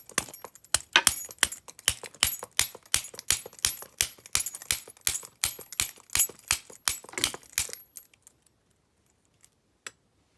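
Rapid, even metallic clicking, about three clicks a second, as a tool turns a rusted, long-stuck screw out of a padlock body; the clicking stops about eight seconds in.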